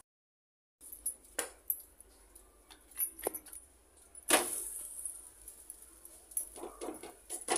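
Scattered light clinks and taps of glass bangles on the wrists and of dough and a wooden bowl being handled, with one louder knock about four seconds in. The sound cuts out completely for a moment at the start.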